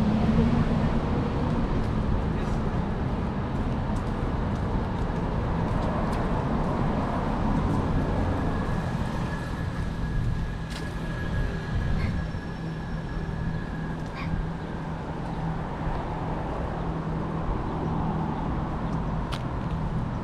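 City street traffic: motor vehicles running and passing, with a steady low engine rumble. A thin steady whine sounds for several seconds in the middle, along with a few sharp clicks.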